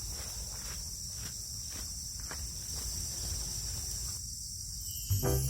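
A steady, high-pitched insect chorus with a low rumble beneath and faint soft ticks about twice a second; music comes in near the end.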